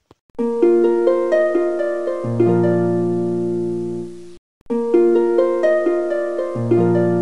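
Background music: a short harp-like plucked-string phrase over held low notes, played twice with a brief gap, each time cutting off abruptly.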